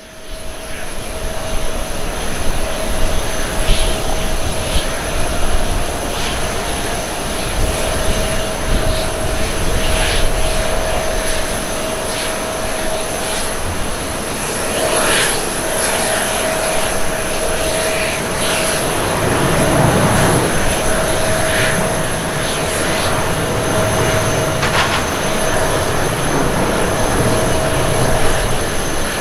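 Boeing 737-800's CFM56-7B turbofan engines at takeoff thrust through the takeoff roll and lift-off: a steady jet roar with a high, steady whine, a deeper rumble swelling in about two-thirds of the way through.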